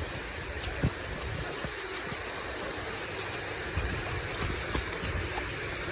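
Rushing water of a stream or waterfall at a dam: a steady, even rush with a few short low thuds.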